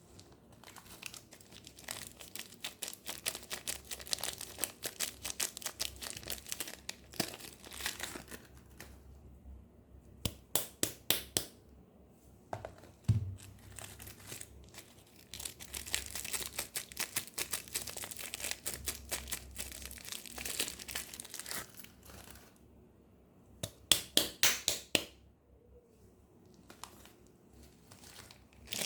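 Soap packaging being unwrapped by hand, crinkling and tearing, with clusters of quick sharp crackles twice and a soft thud about thirteen seconds in.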